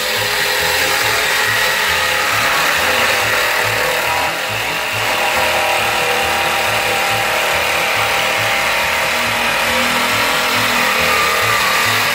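DeWALT cordless jigsaw fitted with a Lenox bimetal metal-cutting blade sawing steadily through 10 mm-thick steel channel, well beyond the blade's 6.4 mm rated maximum; the cut eases briefly about four seconds in.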